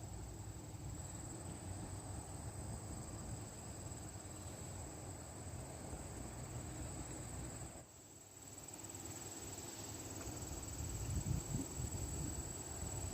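Wind buffeting the microphone outdoors, a low rumble that drops briefly about two-thirds of the way through and gusts louder near the end, over a thin, steady high tone.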